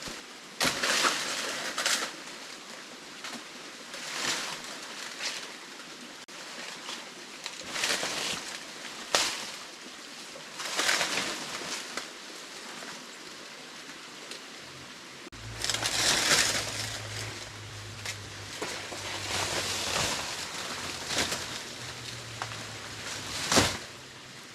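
Dry leaves and fallen branches crunching and rustling in irregular bursts every second or two. A low steady hum comes in about halfway through.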